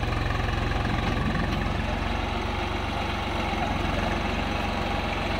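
Swaraj tractor's diesel engine running steadily with an even, rapid low throb as it pulls a loaded trolley through deep mud.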